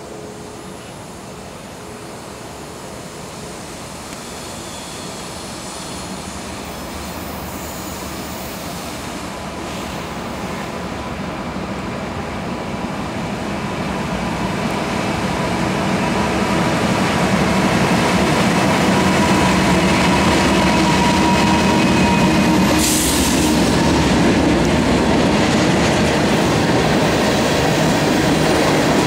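Diesel freight locomotives approach and pass, their engines growing steadily louder over the first half. A long string of tank cars then rolls by with steady wheel-on-rail noise, a thin high wheel squeal and a short burst of noise about three-quarters of the way through.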